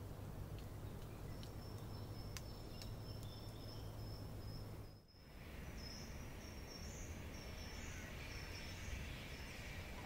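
Forest ambience recording: a thin, high, steady trill over a low rumble of background noise. The sound dips briefly about halfway through, then goes on as a wavering, pulsing high chirping.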